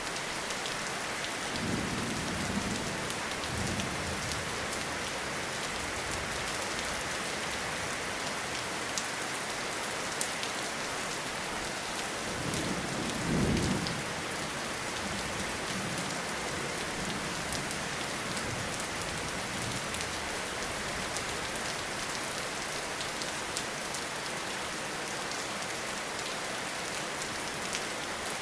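Steady rain falling, with low rumbles of distant thunder: a softer one about two seconds in and a stronger one about halfway through.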